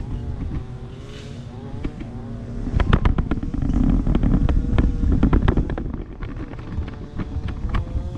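Self-balancing scooter's electric hub motors whining, the pitch wavering up and down as it balances and drives, over a low rumble of wheels rolling. A run of sharp knocks and rattles comes in the middle, the loudest part.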